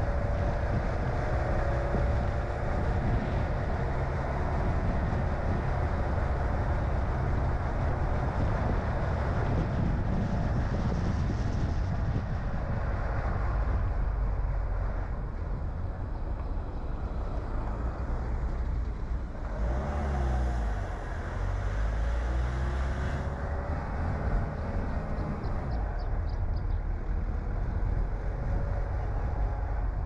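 A car being driven, with steady engine and road noise. The engine note rises and falls slowly, with a shift about two-thirds of the way through.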